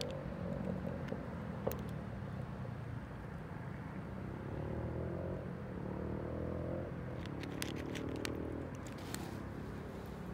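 A cat crunching dry kibble, with a few sharp crunches in the second half, over a steady low mechanical hum.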